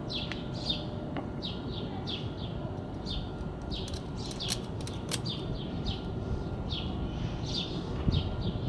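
A small bird chirping over and over, short downward-sliding chirps about two a second, over a low steady background rumble. A few sharp clicks come about four to five seconds in.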